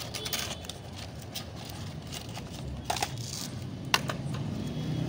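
Faint rustling of paper firecracker wrappers being handled and turned in the hands, with a few short clicks, over a low steady hum.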